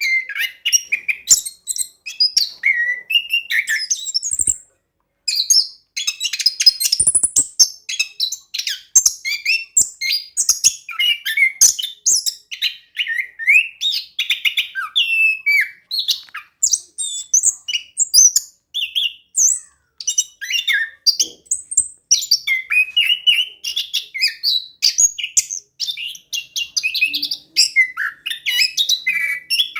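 Orange-headed thrush singing continuously: a fast, varied string of whistles, chirps and rapid rolling trills, with a short pause about five seconds in.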